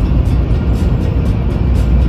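Background music with a steady beat, crisp high ticks about four times a second over heavy low bass.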